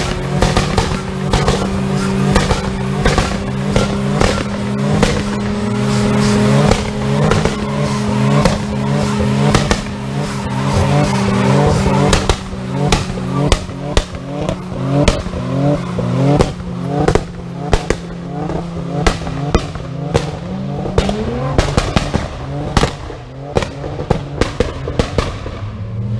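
Nissan 240SX engine held at high, steady revs with a rapid string of exhaust pops and bangs while the tyres squeal. Over the last few seconds the bangs come less often.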